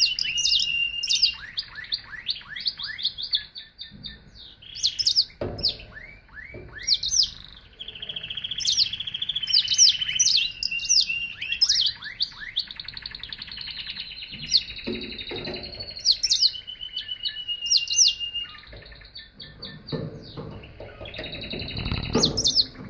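Domestic canary singing a continuous song of rapid trills, repeated sweeping notes and held high whistles. A few low thumps sound along the way, the strongest near the end.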